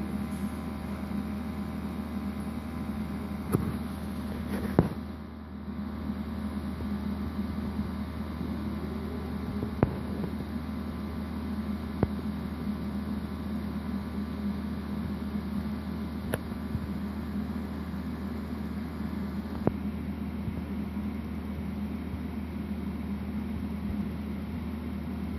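A steady low machine hum, with a handful of sharp clicks scattered through it.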